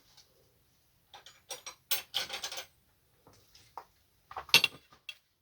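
Small metal clicks and clinks, with a short rattling scrape, as hand tools and the parts of an oxy-acetylene cutting torch are handled during disassembly. There is a louder, sharper clink about four and a half seconds in.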